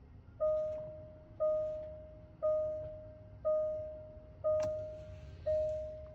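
Jaguar E-Pace's warning chime sounding a single bell-like tone once a second, each one fading before the next, with one sharp click partway through.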